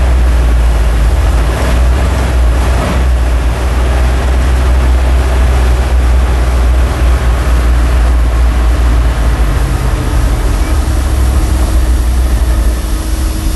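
The Dodge Power Wagon's 360 cubic-inch V8 idling steadily as it warms up on gasoline, heard from inside the cab as a loud, deep, steady rumble.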